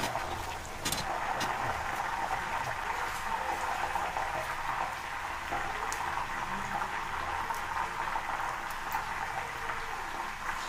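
Raw banana slices deep-frying in hot oil in an iron kadai: a steady sizzle, with a few light clicks of a perforated ladle.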